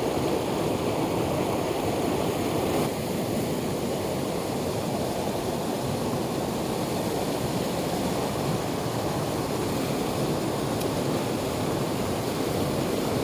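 Mountain torrent rushing over rocks and small waterfalls: a steady, even whitewater rush that drops slightly in level about three seconds in.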